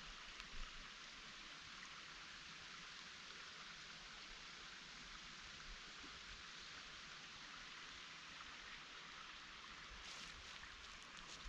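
Faint steady hiss of forest ambience while the walker stands still, with no footsteps. Light footsteps on the path start again about ten seconds in.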